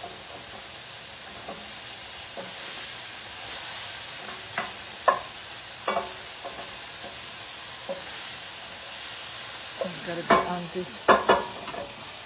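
Diced prosciutto sizzling in oil in a stainless steel skillet, a steady hiss, while a wooden spoon stirs it with scattered scrapes and knocks against the pan. The spoon strokes come thicker and louder near the end.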